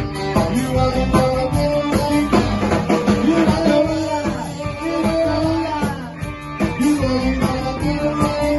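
Live rock band playing: a lead singer on a handheld microphone, an electric guitar and a drum kit.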